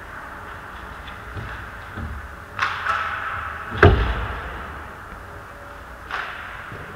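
Ice hockey play in an echoing rink: skate blades scraping the ice in short bursts, and about four seconds in a single loud, sharp bang of a hockey puck impact that rings on in the arena.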